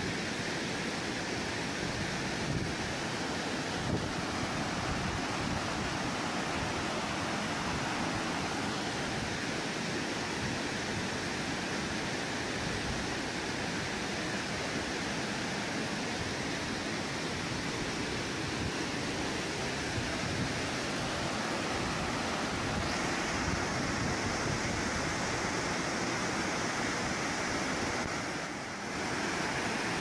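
Bucias waterfall rushing: a steady, even wash of falling water, dipping briefly near the end.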